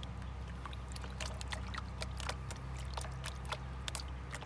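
Water sloshing and splashing as a green plastic gold pan is tilted and dipped in a tub of water, washing over the pan's riffles in quick small splashes while lighter material is washed out during gold panning. A low steady hum runs underneath.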